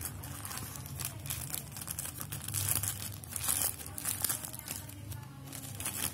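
Clear plastic packaging bag and paper wrapping crinkling and rustling in irregular handfuls as earphones are unwrapped, loudest a few seconds in.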